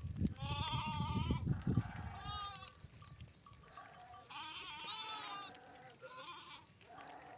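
Sheep and goats bleating, several wavering calls overlapping one another, with low thudding under the calls in the first couple of seconds.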